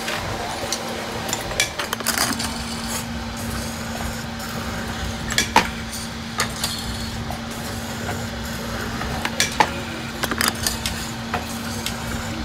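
Steady hum of a workshop machine's electric motor, with irregular sharp metallic clinks and clatter as metal oil-filter parts are handled.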